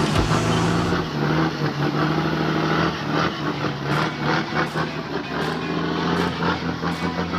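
Heavy truck's diesel engine running steadily under load, its tone shifting about a second in.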